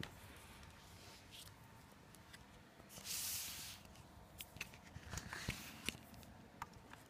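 Faint handling noises: a few light clicks and taps, with a brief rustle about three seconds in, as a laptop and its power adapter cable are handled.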